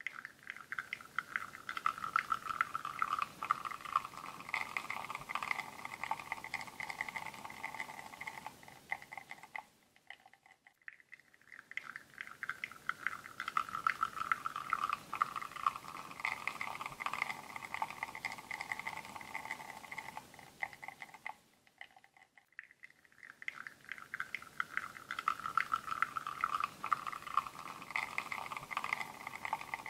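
Espresso extracting from a bottomless portafilter on a La Marzocco Linea Mini and pattering into a cup: a dense crackle of dripping and pouring liquid. It fades almost to silence about ten seconds in and again about twenty-two seconds in, then starts up again as a new shot begins.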